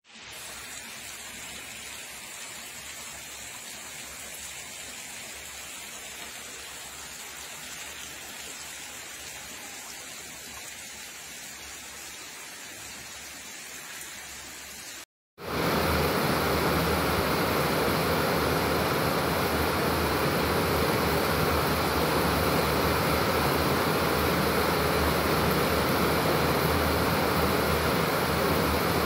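Steady hiss of rain falling. About halfway through it cuts off suddenly, and a louder, denser rushing of heavy rain follows, with water pouring from above onto a water tank.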